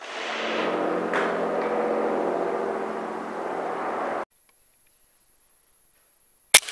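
A steady mechanical hum with a few pitched tones, which cuts off abruptly about four seconds in; then, near the end, a single sharp crack of a PCP air rifle shot with a short ring after it.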